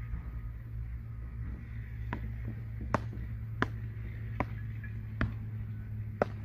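Beach tennis paddles hitting the ball back and forth in a fast volley rally: six sharp pocks about one every 0.8 seconds, starting about two seconds in.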